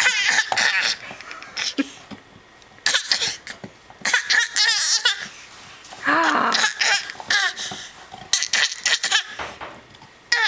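A young child's high-pitched laughing and squealing, in about five short bursts with quieter gaps between them.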